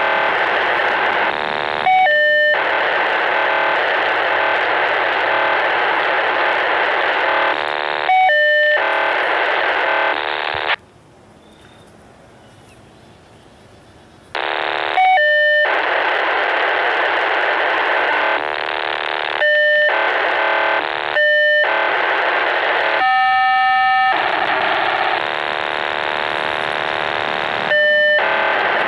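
A continuous data transmission coming through a VHF radio receiver's speaker: a dense, harsh hiss of data switching every second or two between short steady beeping tones and patterns of several tones at once. About eleven seconds in the signal drops out to a faint hiss for roughly three and a half seconds, then resumes.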